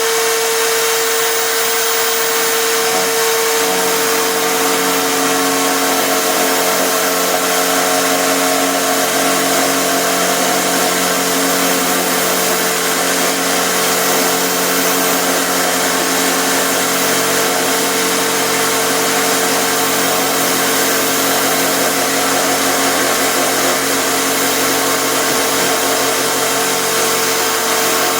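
Electric drill serving as the motor of a home-made router table, running steadily with a constant whine over a loud rushing noise; a few seconds in, lower tones join and the sound stays even to the end.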